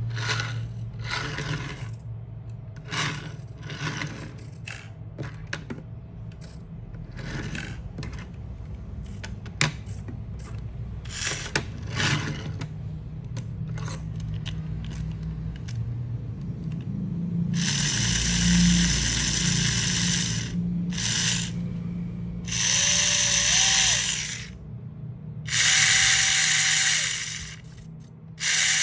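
Small electric motor and drivetrain of a 1/43-scale 4WD RC drift car whirring. In the first half there is a low steady hum with scattered clicks and scrapes, then, with the wheels spinning freely off the ground, the motor is run in several loud bursts of a second or two, some with a rising whine.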